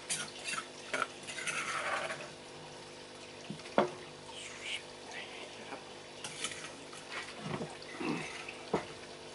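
A metal spoon stirring and scraping in a stone mortar, mixing seasoning into chili paste, with a few sharp clinks against the stone. A steady trickle of water and a low hum run underneath.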